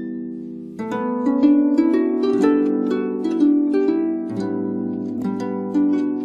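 Harp playing a melody of plucked notes. A fresh run of notes starts about a second in, and a low bass note joins a little after the middle.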